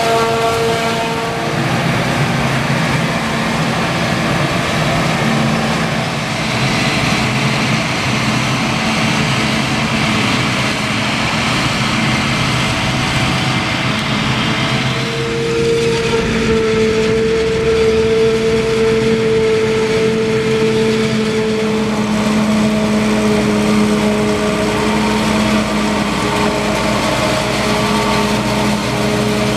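Claas Jaguar self-propelled forage harvester chopping maize, its engine and chopper running steadily under load with a held whine. The tones shift about halfway through, and a tractor pulling the silage wagon alongside runs with it.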